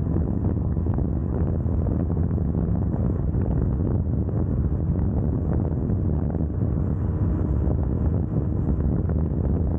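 KTM Duke 390's single-cylinder engine running at a steady high speed, mixed with wind rushing over the rider-mounted microphone. The sound holds even throughout, with no rev changes or gear shifts.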